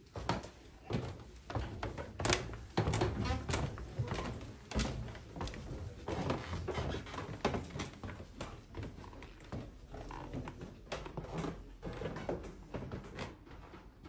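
Footsteps climbing a wooden staircase with metal-edged treads: a run of irregular thumps and knocks.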